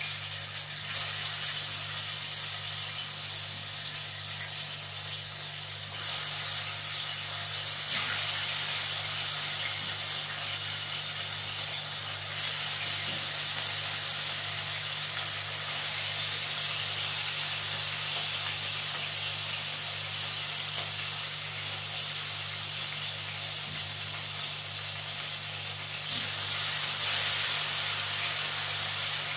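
Chicken back pieces frying in hot oil in a pan on a gas stove, sizzling steadily and swelling louder several times, over a steady low hum.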